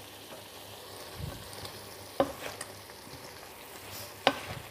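Pan of freshly added vegetables sizzling softly on the stove while a wooden spatula stirs them, knocking against the pan twice, about two seconds apart.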